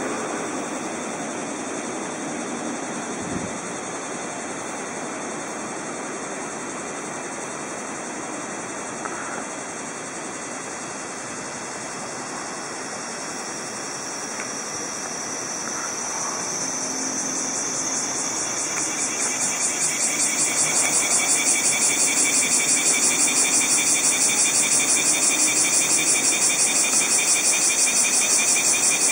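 Cicadas singing: a high, rapidly pulsing buzz that swells up about two-thirds of the way in and stays loud, over a steady background hiss.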